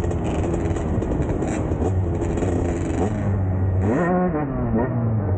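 Two-stroke dirt bike engine running steadily under throttle, then revving sharply up and dropping back down about four seconds in.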